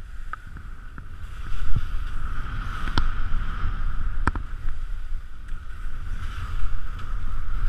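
Skis sliding downhill over snow with wind rushing over the microphone, a steady low rumble and hiss that gets louder after about a second. Two sharp clicks about three and four seconds in.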